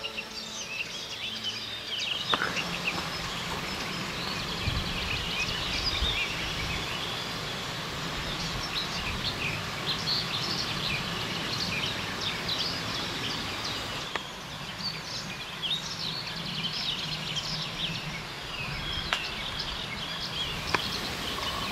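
Several small birds singing, with many short chirps and trills throughout, over a steady outdoor hiss and a faint low hum.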